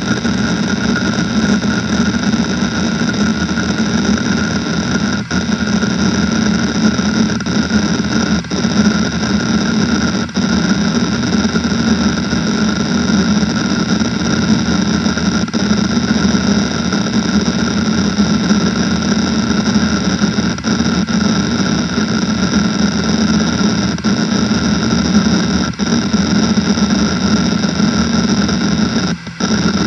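Maxtor Atlas 10K V (8J300S0, 300GB, 10,000 rpm SAS) enterprise hard drive running a random seek test: loud, continuous rapid head-seek chatter over steady whining tones. There is a momentary break about every five seconds.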